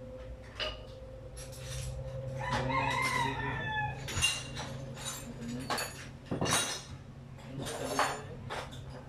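A rooster crowing once, about two and a half seconds in, a call of about a second and a half that falls in pitch at its end, with scattered short clicks and knocks around it.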